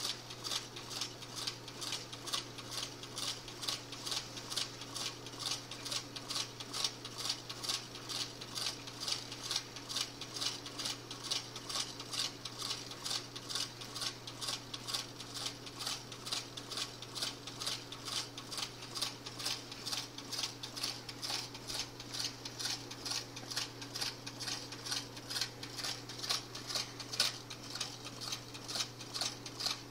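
Homemade soda-can gamma Stirling engine running, its wire crank and displacer ticking evenly about three times a second as the CD flywheel turns. A steady low hum runs underneath.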